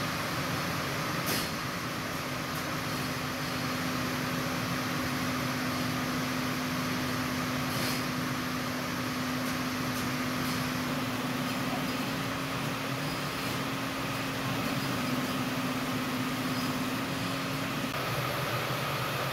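Factory machinery running steadily: a continuous hum with a steady low tone and a higher whine over it, a couple of sharp clicks, and the low tone stops near the end.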